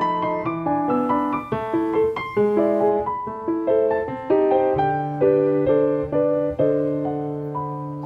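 Background piano music: a gentle melody of single notes moving several times a second over held bass notes.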